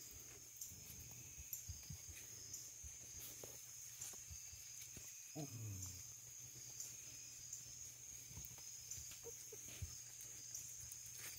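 Faint sounds of a basset hound puppy moving about on a towel: light scuffs and clicks, and one short whine falling in pitch about five seconds in, over a steady low hum.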